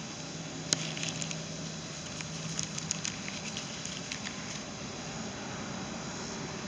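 Plastic bags of parts being handled: light crinkling and scattered small clicks, with one sharp click just under a second in, over a faint steady hum that fades about three seconds in.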